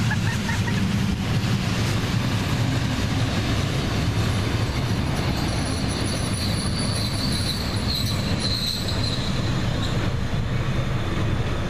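Old passenger coaches and a boxcar rolling past close by on the rails: a steady rumble of wheels on track. For a few seconds in the middle a high wheel squeal rises over it.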